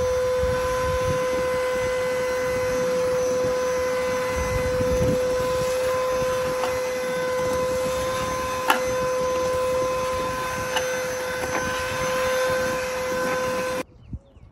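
Carpet extractor's vacuum motor running with a steady high whine over a hiss of suction as its clear nozzle is worked over wet, foamed car carpet, with one sharp click a little past halfway. The sound cuts off abruptly near the end.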